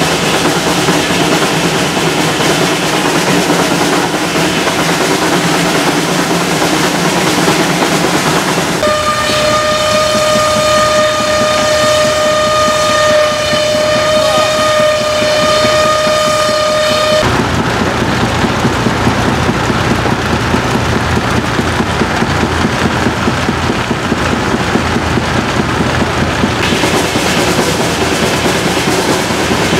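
Steam whistle blowing one long, steady note for about eight seconds, starting about nine seconds in, over continuous mechanical noise.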